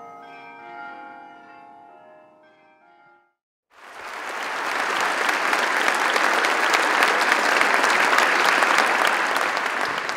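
Soft instrumental intro music fading out over the first three seconds. About four seconds in, a large audience starts applauding. The applause swells quickly, holds steady, and begins to taper near the end.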